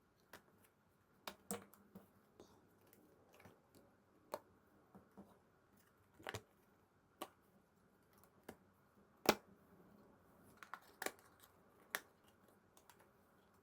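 Photocards and their plastic packaging being handled: about fifteen irregular sharp clicks and taps, the loudest about two-thirds of the way through.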